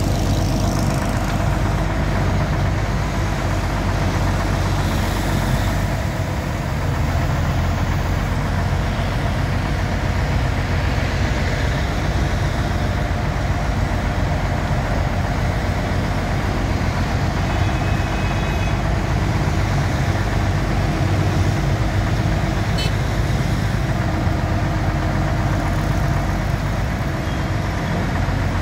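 The heavy diesel engine of a truck-mounted crane running steadily at idle.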